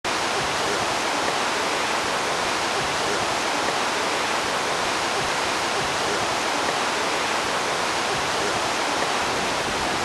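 Bridalveil Fall in Yosemite: a steady, unbroken rush of falling water.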